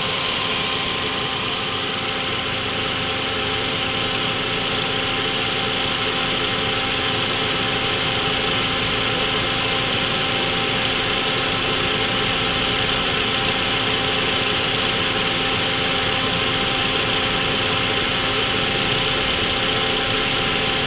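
Toyota Vios's 2NZ-FE 1.3-litre four-cylinder engine idling steadily while warming up. The idle is smooth again now that the loose PCV valve hose at the intake manifold, the vacuum leak behind the rough idle and stalling, has been pushed back on.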